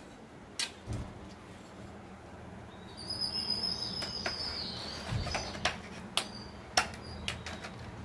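A high, slightly falling trilled animal call lasting about two seconds, with several sharp clicks around it.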